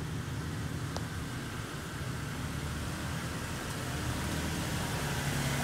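Lifted 2017 Toyota Tacoma on 35x12.5R17 tires crawling through sand, its engine running steadily and growing louder as the truck draws near and passes close by.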